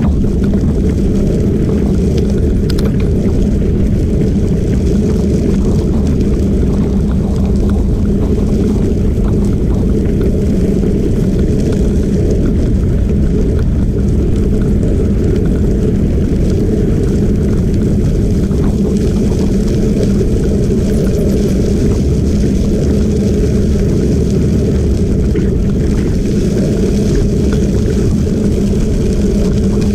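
Steady low rumble of wind buffeting the microphone and tyres rolling on a gravel trail, moving at about 12–15 mph.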